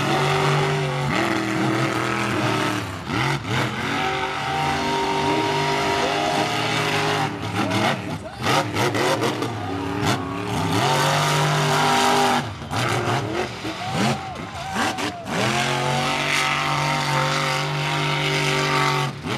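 Monster truck engines running hard and revving, the pitch repeatedly climbing and dropping between stretches of steady high revs.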